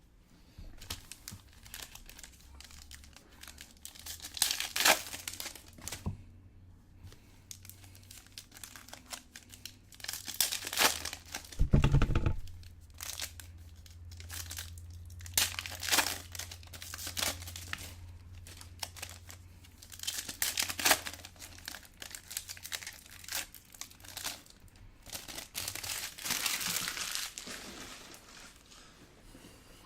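Packaging of a World Cup Prism retail box of trading cards being torn open and crinkled by hand, in irregular rustling bursts, with a dull thump about twelve seconds in.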